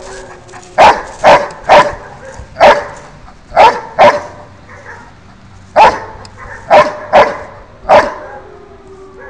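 Dutch Shepherd barking at an approaching decoy, about ten loud barks in quick groups of two or three with short pauses between.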